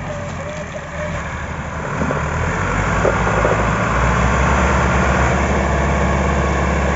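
Massey Ferguson 385 tractor's four-cylinder diesel engine working hard under load as it strains to pull a stuck, heavily loaded sugarcane trolley. The engine grows louder and deeper about two seconds in, then holds steady.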